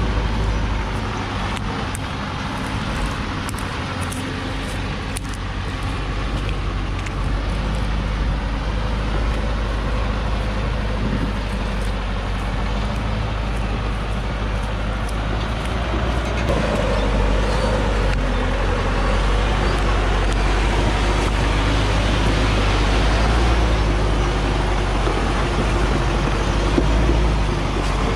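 Heavily loaded Hoa Mai truck's diesel engine running under load as the truck creeps along a rough dirt track, growing louder a little past halfway through.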